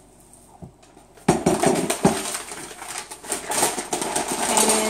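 Paper flour bag crinkling and rustling as its top is folded and rolled closed, starting about a second in, with a single knock shortly after.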